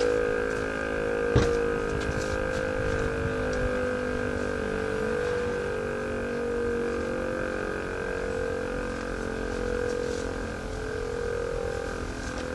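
DS977 rotary siren sounding a continuous fire-brigade alarm tone in a test alarm. The chord-like howl holds a steady pitch, wavering slightly, with a low rumble of wind or traffic underneath. A single sharp click comes about one and a half seconds in.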